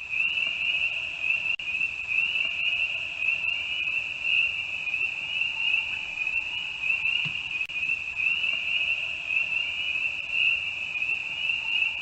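Night-time jungle ambience: a steady, high-pitched trilling chorus of calling insects or frogs, pulsing rapidly on one pitch without a break.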